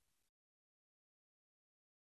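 Silence: the sound track is muted, with nothing audible.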